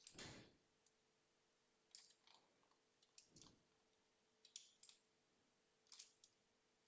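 Faint computer mouse clicks, a few short pairs spread over several seconds against near silence.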